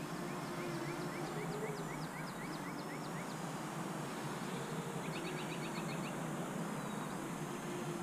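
Outdoor ambience with songbirds calling in quick runs of short chirps, several a second, through the first three seconds and again briefly about five seconds in, over a steady low hum.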